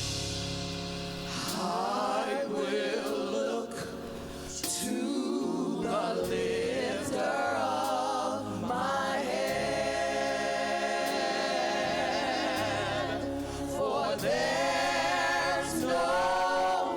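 Gospel choir singing with band accompaniment, voices held on long wavering notes.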